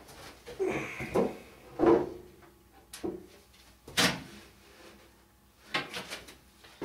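Wooden Langstroth beehive parts being handled and set back in place: an irregular series of wood-on-wood knocks and scrapes, the loudest about two seconds in and again about four seconds in.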